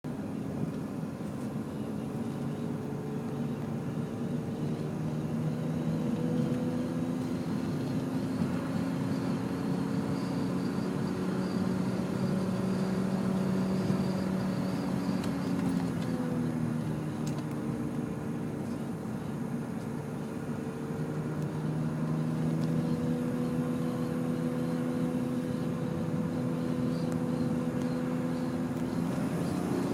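E36 BMW M3's straight-six engine running under way with road noise, its pitch rising slowly, dropping about halfway through and climbing again.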